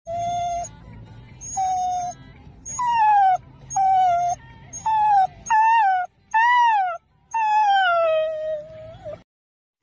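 A dog whining and howling in a string of about eight high, sliding cries. The last cry is long and falls in pitch.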